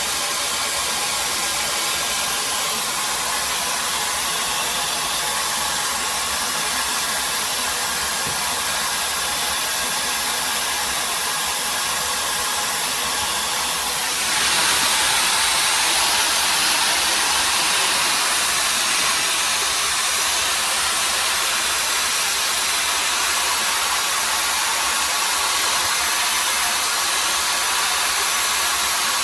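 Hair dryer brush (webeauty hot air brush) blowing air steadily, a loud even rush with a faint whine in it; about halfway through it gets louder and brighter.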